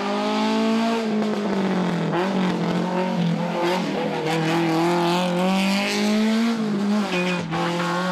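Racing car engine at high revs on a hillclimb, its pitch climbing and dropping several times as it accelerates, shifts and lifts for bends.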